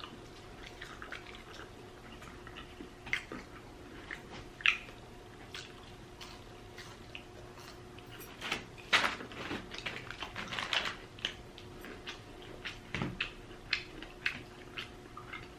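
Close-up mouth sounds of someone eating: scattered wet lip smacks and chewing clicks, irregular and mostly soft, with a few sharper smacks about nine and eleven seconds in.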